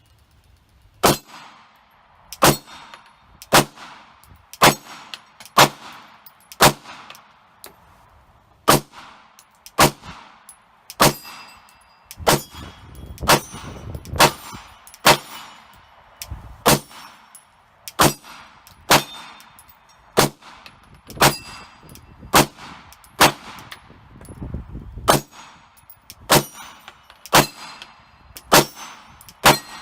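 Glock 22 pistol with a 9mm conversion barrel firing single shots from a KCI 33-round magazine at a steady pace of about one a second, more than two dozen in all, each a sharp crack with a short ringing tail. The even pace shows the pistol cycling without stoppages.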